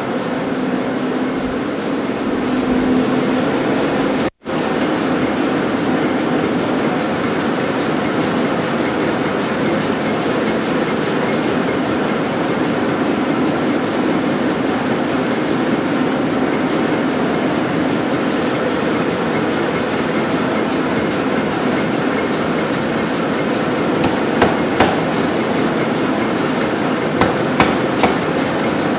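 A 500 lb Nazel self-contained air hammer running with a steady mechanical rumble as its built-in compressor works. Near the end come a few sharp knocks as red-hot steel is worked under the ram.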